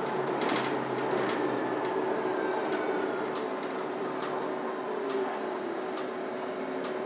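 Cabin noise of a city transit bus under way: a steady drive hum with a constant whine, and a few light clicks and rattles.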